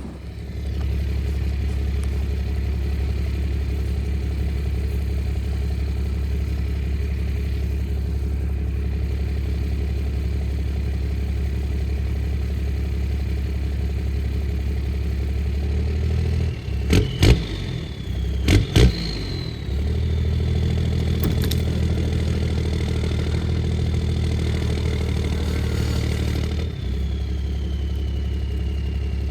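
Truck engine running steadily under load, with a quick burst of sharp metal clanks about two-thirds of the way through, followed by a thin high whine that slowly drops in pitch.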